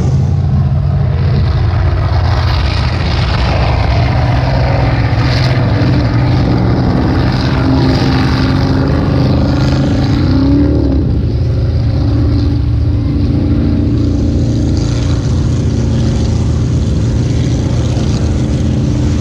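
Motorboat engine running steadily at speed, with a brief rise and fall in pitch a little after ten seconds in.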